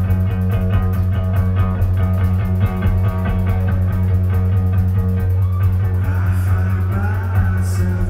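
Live rock band playing loud: a heavy, sustained bass guitar note under fast drum strokes and electric guitar. A wavering higher line joins in about six seconds in.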